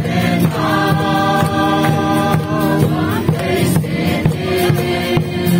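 A congregation singing a gospel song together in long held notes over a steady beat.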